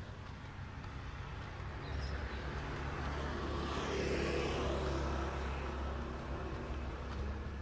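A car passing by on the street, its tyre and engine noise rising to a peak about four seconds in and then fading.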